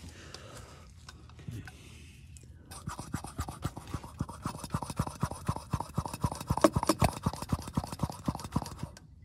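Brake bleeding with a handheld vacuum pump: a rapid, scratchy run of clicks from the pump being worked, with air and old brake fluid drawn from the loosened caliper bleeder into the catch bottle. It starts about three seconds in after a faint lead-in and runs on until just before the end.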